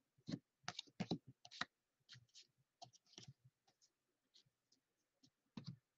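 Stack of baseball trading cards thumbed through one by one, card sliding off card: a run of short, irregular clicks and snaps, thick in the first two seconds, then sparser, with a last couple near the end.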